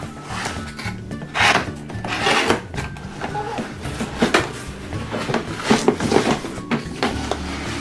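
Background music with a steady accompaniment, over irregular clacks and rustles of plastic toy pieces being handled.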